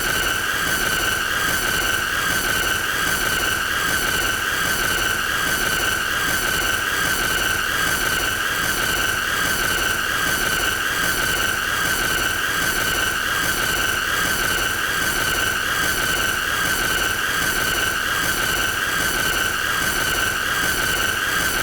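The looped 'most annoying sound' effect: a loud, unbroken high-pitched squealing tone with overtones, wavering slightly in a regular pulse, over a hiss.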